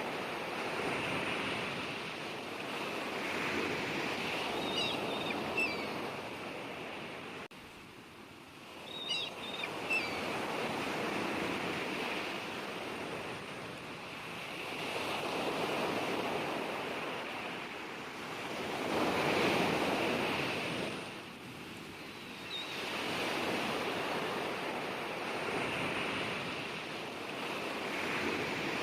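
Sea waves surging and washing on a shore, swelling and ebbing every few seconds. A few faint, short, high chirps sit above them, and the sound drops away abruptly once, about a third of the way in.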